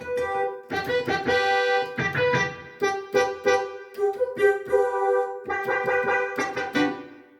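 Yamaha PSR-530 keyboard playing a melody on one of its preset voices, a piano-like tone whose notes strike and fade; the phrase dies away near the end.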